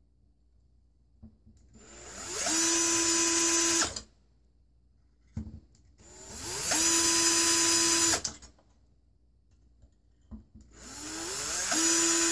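Cordless drill with a small bit run in three short bursts against a painted panel, scratching the paint to mark three screw-hole spots. Each burst spins up with a rising whine and then holds a steady high whine for about two seconds before stopping.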